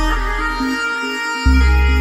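Background music with sustained tones over a heavy bass line; the bass drops out about half a second in and comes back strongly about a second later.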